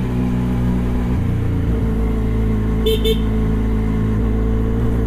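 Benelli motorcycle engine running steadily under way, its note shifting briefly about a second in. Two short horn beeps come about three seconds in.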